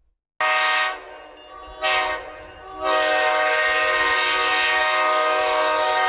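Diesel locomotive's multi-chime air horn sounding a chord of several steady notes: two short blasts, then one long held blast from about three seconds in, a warning for a road grade crossing.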